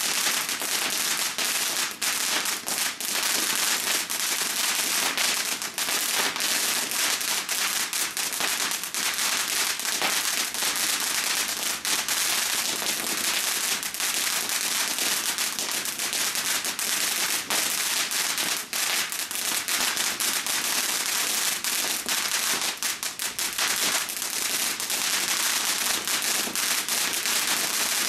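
Ground fountain firework spraying sparks: a steady hiss, dense with crackling pops throughout.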